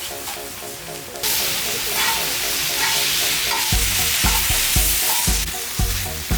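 Dak-galbi frying on a hot griddle: a strong sizzle that starts about a second in and dies down near the end. Background music with a steady beat runs underneath.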